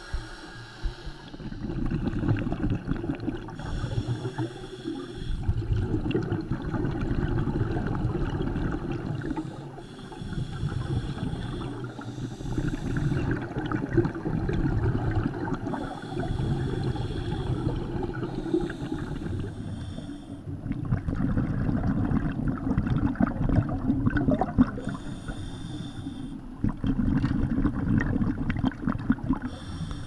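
Scuba diver breathing through a regulator underwater: a short hiss on each in-breath, then a long bubbling rumble of exhaled air, repeating in a slow, regular cycle.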